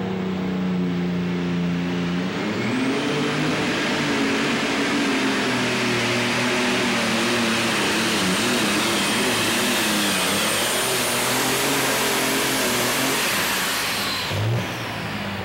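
Alcohol-burning engine of a New Holland 8260 light super stock pulling tractor idling, then opening up about two seconds in and running at full throttle under load down the track. A high whine rises over it and then holds. The engine drops off sharply near the end as the pull finishes.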